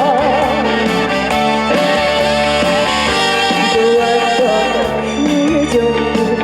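Upbeat trot song with full band backing: a held sung note with a wide vibrato ends within the first half-second, and the instruments then carry the melody.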